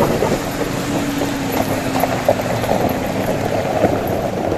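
Off-road SUV crawling over an icy, rocky trail: the engine running with a faint steady hum, and the tyres crunching and knocking over ice and stones.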